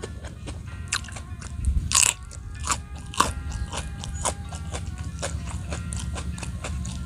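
Close-up crunching and chewing as raw young jengkol beans are bitten and eaten, a quick run of sharp crunches, the loudest about two seconds in.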